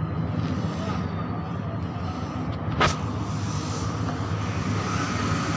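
A steady low mechanical hum, with one sharp click about three seconds in.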